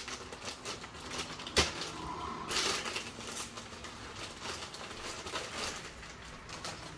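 Rustling, crinkling and clicking of a mail package being handled and opened by hand, with one sharp knock about a second and a half in and a longer rustle a second later.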